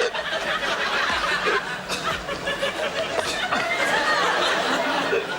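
A studio audience laughing, many people at once.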